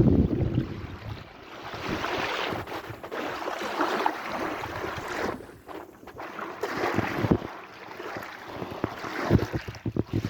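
Sea waves washing in, the noise swelling and easing in surges, with a few short sharp low thumps near the end.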